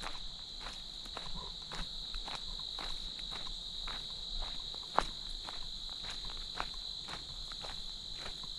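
Footsteps along a trail, about two steps a second, over a steady high-pitched insect chorus. There is one sharper snap about five seconds in.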